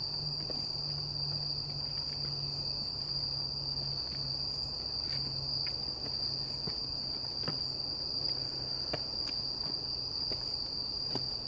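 Night insects trilling in one continuous high-pitched tone, with a few faint scattered clicks.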